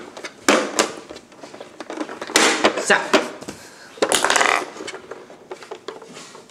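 Hard plastic toy being handled on a tile floor: a few sharp clicks and knocks of plastic pieces, with two longer rattling scrapes, one about two and a half seconds in and one about four seconds in.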